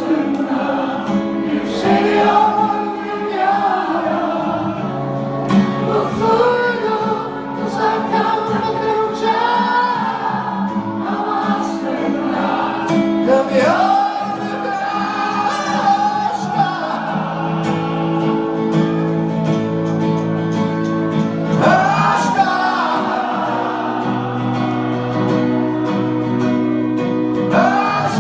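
A song performed live: a sung melody over held chords, with guitar.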